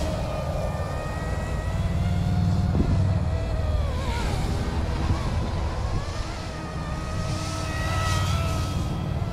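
Battery-powered scale RC helicopter in flight: the electric motor and rotors whine steadily, the pitch wandering with the manoeuvring, dipping about four seconds in and rising again.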